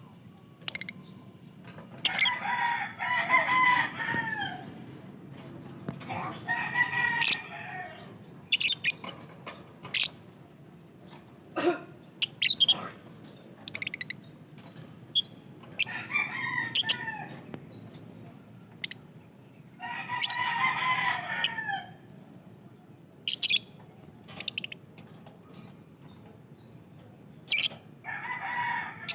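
Lovebirds calling: short, sharp, shrill chirps scattered throughout, with a longer wavering call of about two seconds repeated five times.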